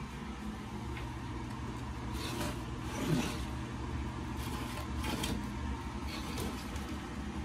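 Rustling and scraping of a woven seagrass basket drawer being pulled and handled in a wooden shelf unit, in a few short bursts. A steady low machine hum runs underneath.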